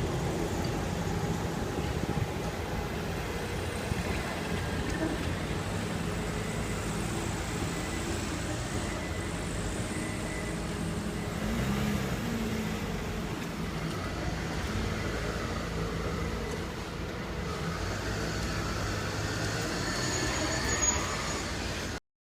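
Road traffic: motor vehicles running and passing steadily. The sound cuts off suddenly near the end.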